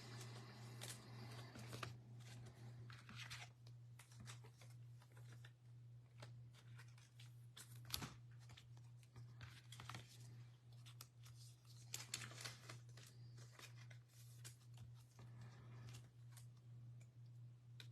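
Faint rustling and ticking of trading cards being slid into soft plastic sleeves, with one sharper tick about eight seconds in, over a steady low hum.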